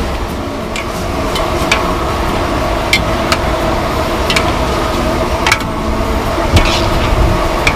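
Metal ladles clinking and scraping against a large wok as fish balls in chili paste are stir-fried, with sharp clinks coming irregularly about once a second over a steady background noise.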